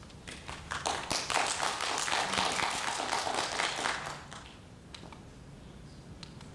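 Scattered applause from a small audience. It starts about a second in, lasts about three seconds and then dies away.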